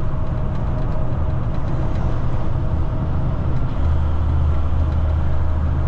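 Semi tanker truck's diesel engine and road noise heard from inside the cab, a steady low rumble; a little under four seconds in, a deeper steady engine hum comes in and holds.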